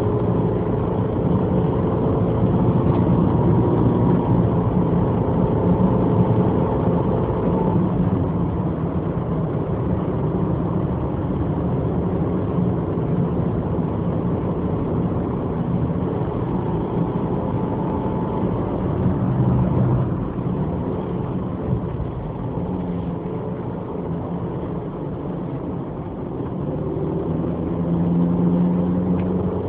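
Inside the cabin of a Subaru Impreza GH3A, its 1.5-litre flat-four engine and automatic gearbox hum steadily under the tyre and road noise while climbing a winding road. It eases off and gets quieter about two-thirds of the way through, then picks up again near the end.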